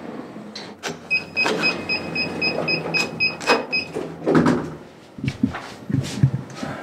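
Elevator electronics beeping: a short high beep repeated about four times a second for nearly three seconds, starting about a second in. Clicks and knocks are heard alongside it, and low thuds near the end.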